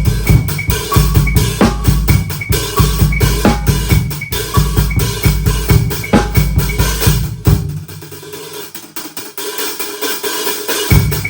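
Old acoustic drum kit played in a busy solo pattern of bass drum and snare hits, with electronic pad sounds mixed in. About two-thirds of the way through, the bass drops out and lighter hits carry on for about three seconds before the full kit comes back.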